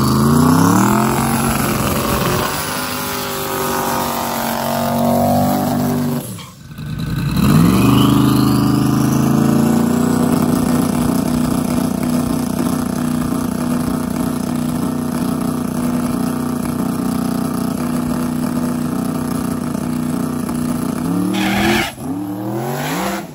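Drag car engine revving hard and accelerating, its pitch climbing, dropping briefly about six seconds in, then climbing again. It then holds a steady high drone for about ten seconds before a last rise, and the sound cuts off suddenly at the end.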